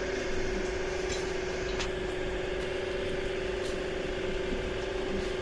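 A steady machine hum holding one pitch, with a few faint clicks.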